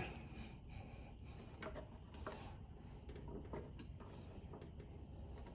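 Faint, scattered light clicks and taps of small carburetor and fuel-tank parts being handled and fitted together by hand.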